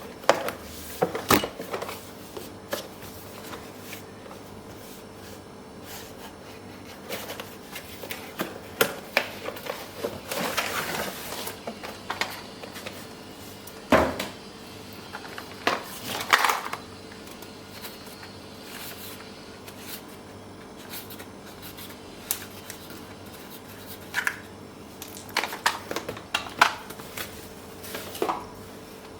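Hands handling a toy RC car and its packaging: scattered clicks, taps and short rustles of plastic and cardboard, with a sharp knock about fourteen seconds in. A faint steady hum runs underneath.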